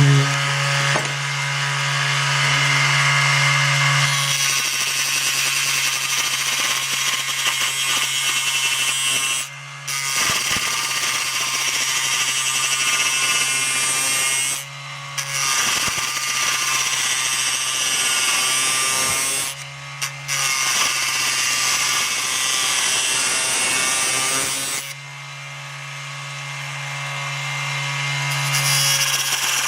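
Raitool 80W 24 V DC mini lathe motor running with a steady hum while a hand turning tool cuts hardwood, a scraping hiss. The cutting starts a few seconds in, breaks off briefly three times, stops for a few seconds near the end with only the motor hum left, then resumes.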